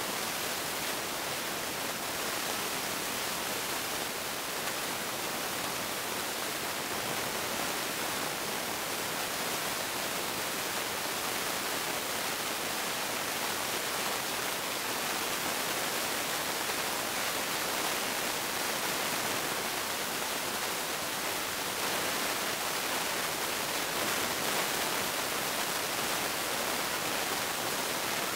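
A steady, even hiss, brightest in the high end, with no chuffing beat or other rhythm and no change in loudness.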